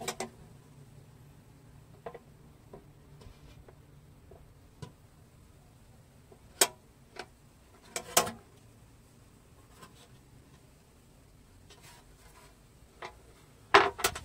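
A thin 0.7 mm aluminium baking pan handled in the hands, giving scattered light clicks and knocks, with a louder knock about six seconds in and another about eight seconds in. Near the end comes a louder clatter as the pan is set down on a tiled floor.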